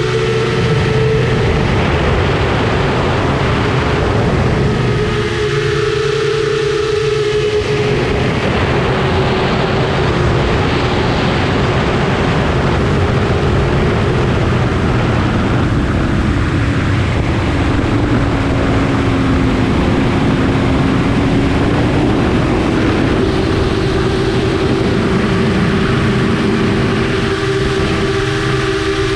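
FPV quadcopter's four Eachine 2507 1800kv brushless motors and propellers whining, recorded on board, over a loud rush of air. The pitch shifts with throttle, dropping for a few seconds past the middle and then rising again.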